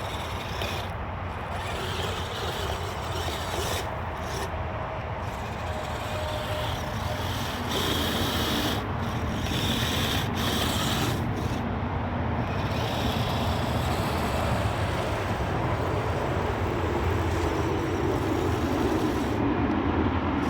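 Kyosho Blizzard radio-controlled snowcat running on its tracks, driven by its electric motors: a steady rushing, rubbing noise that grows louder toward the end.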